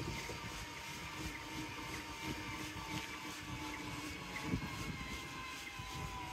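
Steady low rumble with a faint, slightly wavering motor whine, as of a small vehicle travelling along a paved path.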